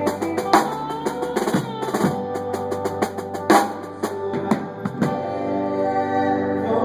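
A live band playing at a sound check, the drum kit hitting hard accents on kick and snare over held notes. About five seconds in the drums ease off and sustained chords carry on.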